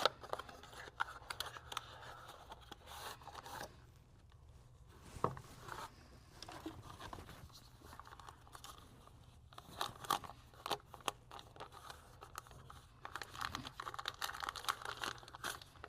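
Packaging being handled and torn open by hand: crinkling and rustling in uneven bursts, with scattered clicks and one sharper click about five seconds in.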